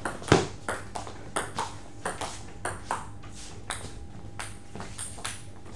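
Table tennis rally: the ball clicking off bats and table in a quick, even back-and-forth, about three hits a second.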